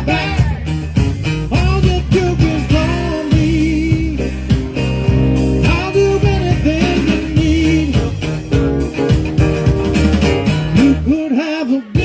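Live band playing rock music with electric guitar, bass and a steady drum beat, with a voice singing over it.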